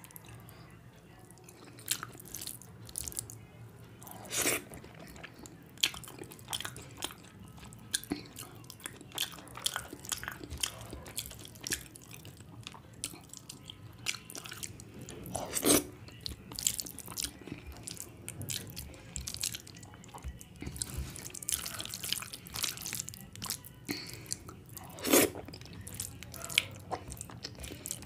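Close-miked eating by hand: fingers mixing rice and curry on a plate, with wet chewing and lip smacks. Three louder sharp sounds stand out, about four, sixteen and twenty-five seconds in.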